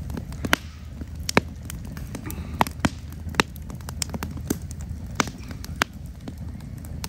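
Wood fire crackling, with sharp snaps and pops about twice a second. Under it, beer pours from an aluminium can into a glass.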